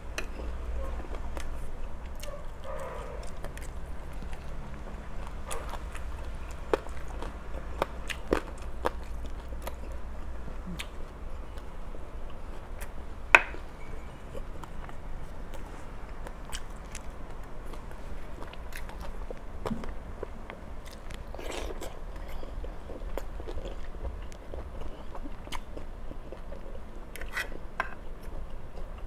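A person chewing and crunching crispy pork and fresh vegetables, with scattered crisp crackles and a louder crunch about 13 seconds in, over a steady low hum.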